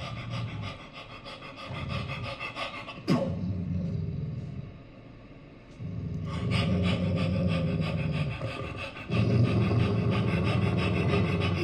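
Beatboxing: raspy, scraping rhythmic mouth and breath sounds, with a sharp click about three seconds in, a quieter stretch after it, and louder again from about six seconds in.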